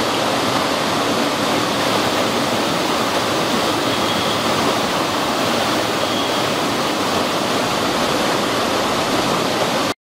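Water cascading over rocks in a small waterfall or stream, a steady, loud rushing noise that cuts off suddenly at the very end.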